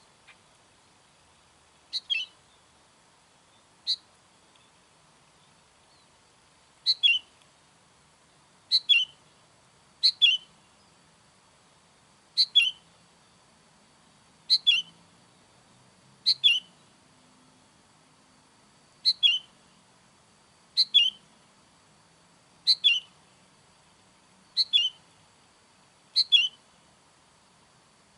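Sooty-headed bulbul calling: a short, sharp, slightly falling call repeated about every two seconds, thirteen times, with a longer pause early on.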